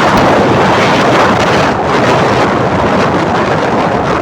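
Wind blasting across the microphone while riding along on a motorbike: a steady, loud rushing noise that buries any engine sound.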